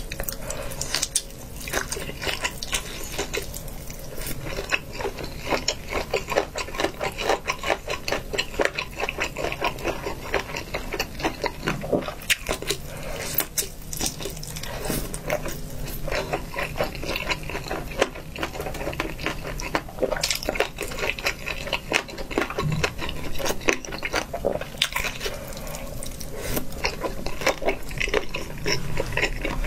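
Close-miked wet chewing and slurping of saucy noodles and meat: a dense, continuous run of moist smacks and clicks from the mouth.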